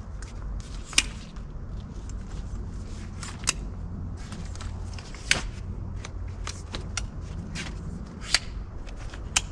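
Folding camping chair being assembled by hand: nylon fabric rustling and handled, with several sharp clicks and clacks of its aluminium poles fitting into place, the loudest about a second in.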